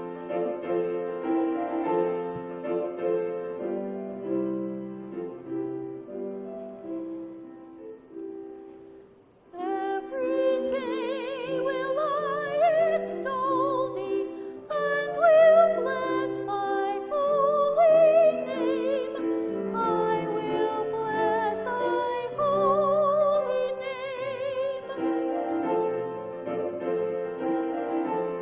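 A solo woman's voice singing a sacred song with a wide vibrato, accompanied by piano. The piano plays alone at first and dies away to a brief hush about nine seconds in; then the voice comes in over the piano and sings for about fifteen seconds.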